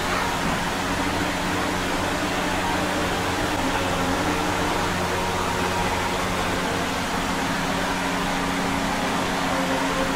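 Steady low droning hum over an even hiss, with no distinct events.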